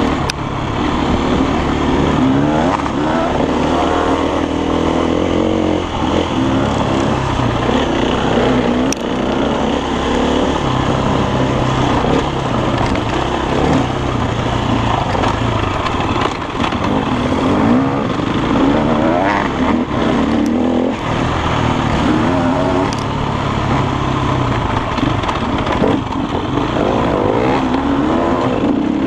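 Enduro dirt bike's engine running under load on a rough trail, its note rising and falling with the throttle, with a few short knocks from the bike over the ground.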